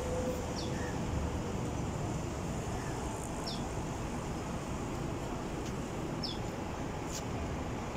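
Steady city traffic noise with a low rumble, and a bird giving short, high, falling chirps three times, a few seconds apart.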